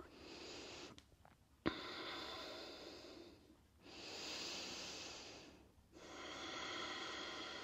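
A woman's slow, soft breathing: four long breaths in and out, each about two seconds, with a small click just before the second.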